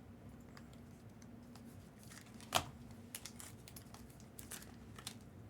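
Trading cards and rigid plastic top loaders being handled on a table: faint scattered clicks and light rustling, with one sharper click about two and a half seconds in.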